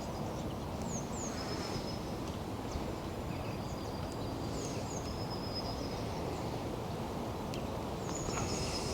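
Outdoor background: a steady low rumble of ambient noise with small birds giving short high chirps and whistles throughout.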